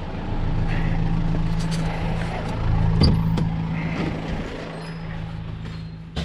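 A steady low engine hum, like a motor idling, with a few scattered knocks and clicks. It grows fainter over the last couple of seconds, and a sharp click comes just at the end.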